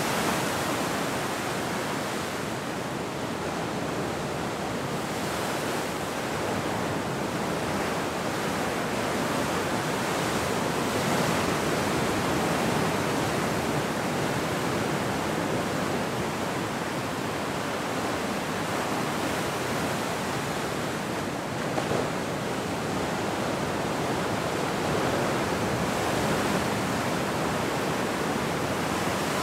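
Ocean surf breaking and washing onto the beach: a steady rush of water that swells and eases slowly.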